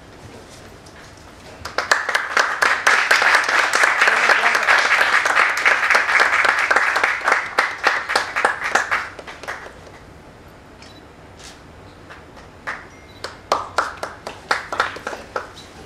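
Audience applauding, starting about two seconds in and lasting about eight seconds, then dying away to a few scattered claps near the end.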